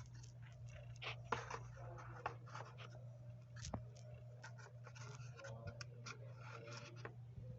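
Faint rustling and scattered light clicks and knocks as small packets are handled and stood one behind another on a cupboard shelf, over a steady low hum.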